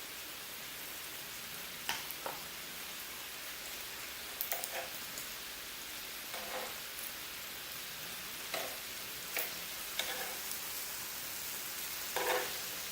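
Thin-sliced lamb sizzling on a grill, a steady hiss, with a few short light clicks and clatters scattered through it.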